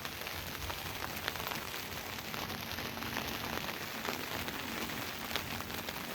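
Steady rain pattering on a surface, a dense patter of small drop ticks over an even hiss.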